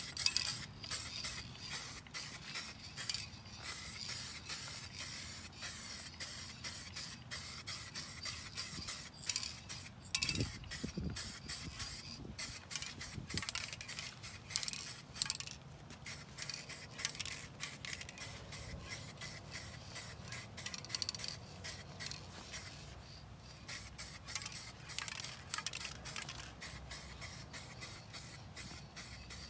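Spray paint hissing in many short, irregular bursts.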